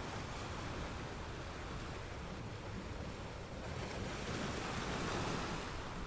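Ocean surf: a continuous rush of rough sea waves that swells into a louder breaking surge about four seconds in.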